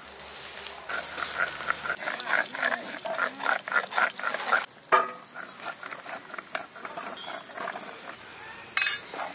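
Spices being ground into a wet paste on a flat grinding stone (shil-nora) with a stone roller: a quick run of rhythmic rubbing strokes for about four seconds, then quieter, with a sharp knock about five seconds in.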